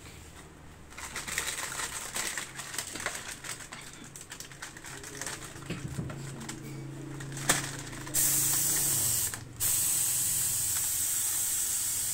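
Handling clicks and rustling as an air spray gun is fitted to a coiled air hose, with a sharp click about seven and a half seconds in. Then a steady loud hiss of compressed air blowing out of the spray gun from the electric compressor's tank. The hiss stops briefly about a second and a half later, then starts again.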